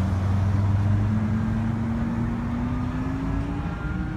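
Road traffic: a vehicle's engine hum slowly rising in pitch as it passes. A faint siren begins to wail near the end.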